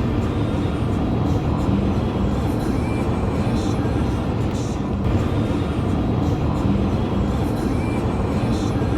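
Steady low rumble of a car driving, with music playing over it.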